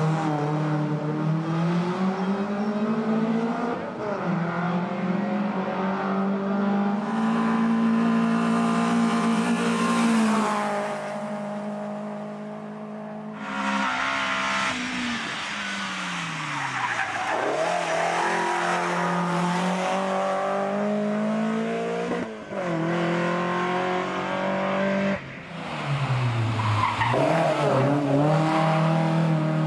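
Tuned 16-valve DOHC engine of a Volvo rally car driven hard on a tarmac stage, in several clips cut together. The engine revs climb and fall through the gears, with a sharp drop in pitch as the car goes by about halfway through and again near the end.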